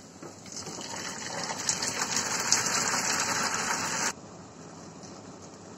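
Nihari stew poured into a pan of hot oil with fried onions and garlic, sizzling and spitting as the liquid hits the oil. The sizzle grows louder, then stops abruptly about four seconds in, leaving a faint hiss.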